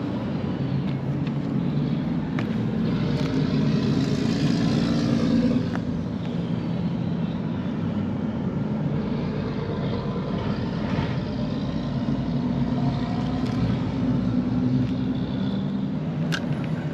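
Steady low engine rumble of passing motor traffic, swelling as a vehicle goes by about three to five seconds in. There is a short sharp click near the end.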